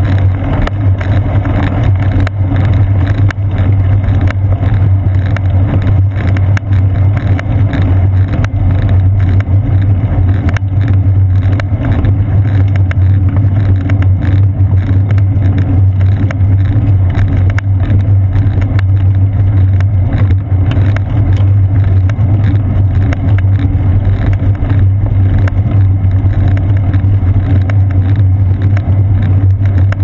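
A bicycle rolling along a paved path, heard as a loud, steady low rumble of wind and road vibration carried through the seat post into a GoPro Hero 2 camera in its housing.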